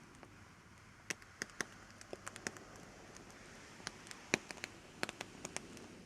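Close, light crackling: sharp little clicks and snaps coming irregularly in small clusters, an ASMR trigger sound.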